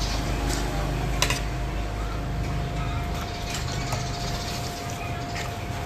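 Steady low mechanical hum with a faint constant whine over it and a few sharp clicks, the sharpest about a second in.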